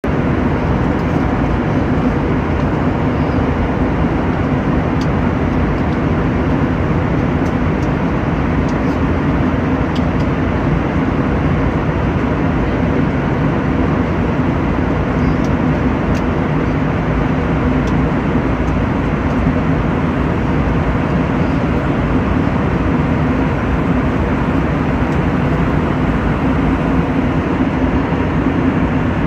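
Ship's engine droning steadily under a constant rushing noise, unchanging throughout.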